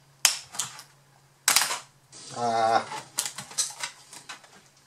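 Laptop keyboard's plastic retaining clips clicking and snapping loose as the keyboard of a Lenovo B50-80 is pried up out of its frame: a series of sharp clicks, with a short humming tone a little past two seconds in.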